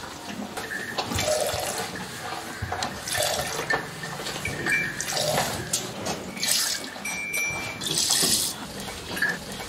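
Cow's milk squirting from the teats into a steel cup during hand milking, in irregular hissing spurts.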